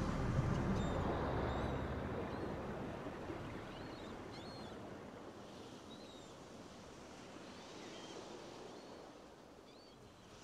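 Background soundtrack fading out: a steady wash of noise like surf, with faint short high chirps above it.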